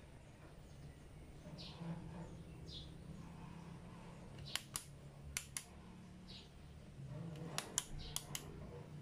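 Sharp plastic clicks, mostly in quick pairs, as hands work the terminals and wiring of an opened multi-socket extension outlet. The clicks come in two clusters, about halfway through and near the end, over a low steady hum.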